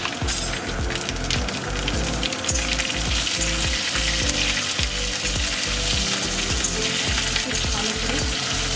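Slit green chillies sizzling steadily in hot oil in a kadai, along with mustard seeds and curry leaves, as the tempering is fried.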